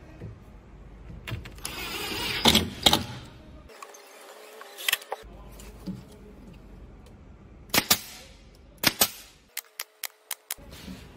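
Cabinet assembly work: a cordless drill driving a screw into plywood panels, then sharp knocks of the panels and a quick run of about five snaps from a DeWalt cordless nailer firing nails into the joint near the end.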